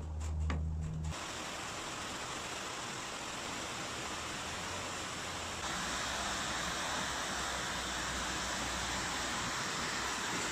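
A steady rushing hiss that gets louder about halfway through, after a low hum with a few clicks in the first second.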